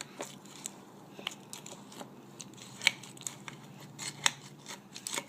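A spoon mixing vanilla ice cream and M&M candies in a glass, giving irregular sharp clicks and taps, a few of them louder.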